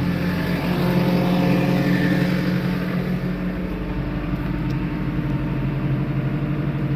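JCB's diesel engine running steadily while it carries out a self-started diesel particulate filter regeneration after the DPF clean.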